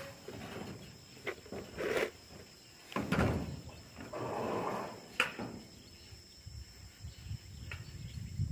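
Irregular knocks and thuds of boots and tools on corrugated metal roofing sheets.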